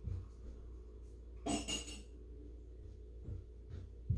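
A brief clink of dishes at a kitchen sink, lasting about half a second, about one and a half seconds in, over a low steady room hum with a few soft knocks.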